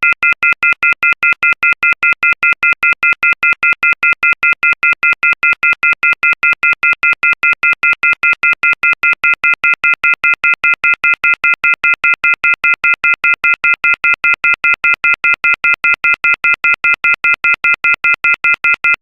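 Telephone off-hook warning tone (receiver-off-hook howler): a loud, shrill chord of high tones beeping rapidly and evenly, about five times a second. It signals that a handset has been left off the hook.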